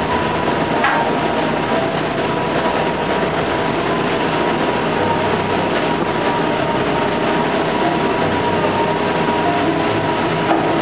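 Machinery of a tin-mining suction dredge boat running steadily: an even, loud mechanical noise with several steady whining tones on top. There is a single short knock about a second in.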